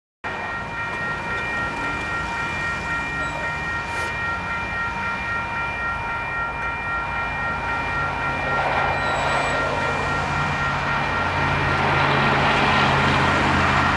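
Western Cullen Hayes electronic crossing bell ringing steadily as the crossing signals activate and the gates lower. A low engine rumble and broad noise build up from about eight seconds in.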